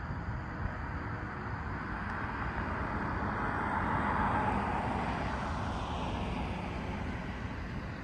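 A vehicle passing by: its noise swells to a peak about four seconds in and then fades, falling in pitch as it goes away, over a steady low background rumble.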